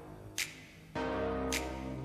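Background music with a steady beat. The bass drops out briefly and comes back in about halfway through.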